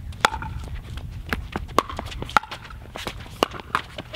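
Pickleball rally: paddles striking a hard plastic pickleball, a sharp pop about once a second, with quieter clicks and taps in between.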